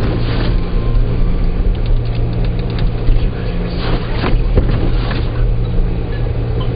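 Car driving along, a steady engine hum and road noise with several short knocks and thumps through the middle.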